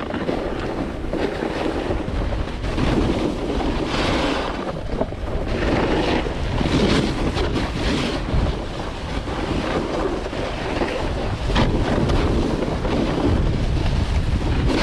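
Skis scraping and hissing over groomed, mostly artificial snow during a downhill run, swelling every second or so with each turn, under wind rumbling on the microphone.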